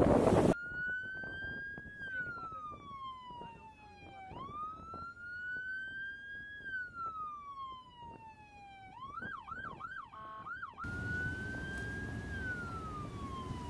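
Electronic siren wailing in slow rising and falling sweeps, breaking into a quick run of yelps about nine seconds in before the wail resumes. Loud wind noise at the very start cuts off abruptly, and wind and water noise returns about eleven seconds in.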